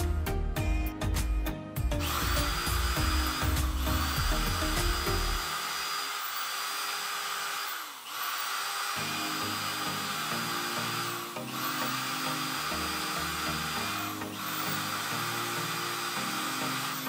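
Electric drill with a metal drill bit boring into a laptop's metal hinge bracket, starting about two seconds in. It runs in about five spells of roughly three seconds each, with a steady high whine that dips briefly between spells.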